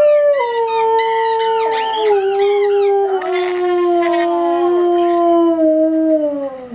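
Black Labrador howling: one long howl that rises at the start, then slowly sinks in pitch and stops near the end.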